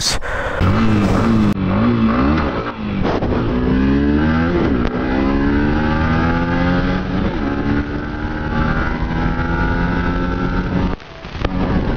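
Yamaha MT-15's 155 cc single-cylinder engine under hard acceleration. It revs up through second and third gear, climbing in pitch and dropping back at each upshift, several times over.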